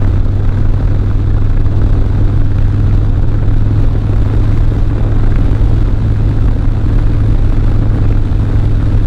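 Harley-Davidson Dyna motorcycle's V-twin engine running steadily under way, with a strong, even low hum and no change in speed.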